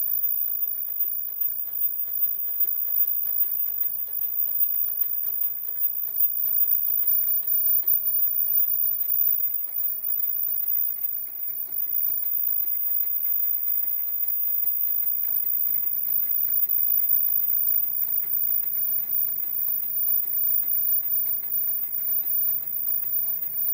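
Automatic disposable face-mask making machine running steadily: a constant mechanical clatter made of rapid, even ticking, with a faint steady whine.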